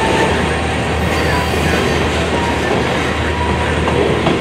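Freight train tank cars rolling steadily past, their steel wheels running on the rails in an even, unbroken noise.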